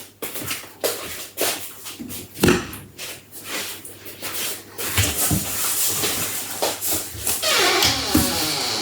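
Cardboard box and packing material being handled as the box is opened: a run of knocks and clicks, then rustling and crinkling from about five seconds in, with a few short squeaks near the end.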